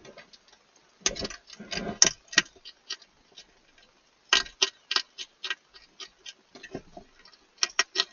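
Hedgehog eating dry food from a bowl: sharp, irregular crunches and clicks, several a second, with a louder rustling scuffle about a second in.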